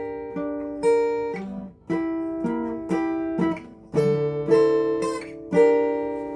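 Acoustic guitar strumming chords, each one struck sharply and left to ring out and fade before the next, the chord changing about every second.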